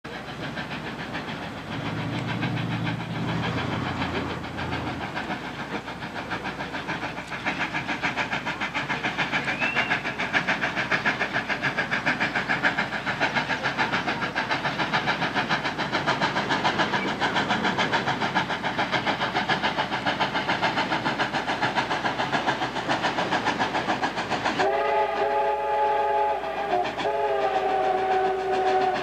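Triple-headed steam locomotives (Nickel Plate Road 587 and Norfolk & Western 611 and 1218) working a freight train, their exhaust a rapid, continuous chatter of beats. Near the end a chime steam whistle sounds a long blast, a short break, then a second blast.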